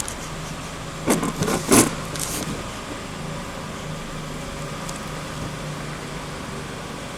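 A quick cluster of sharp clicks and knocks, about a second in, from handling the plastic parts of an LED headlight bulb's driver and clip, over a steady low hum.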